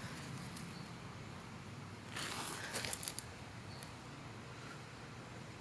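Faint rustling with a few sharp clicks lasting about a second, starting about two seconds in, over a faint low steady hum.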